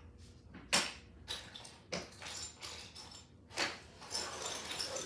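A few sharp clicks and knocks with rustling between them: plastic cups, lids and containers of slime supplies being handled on a table.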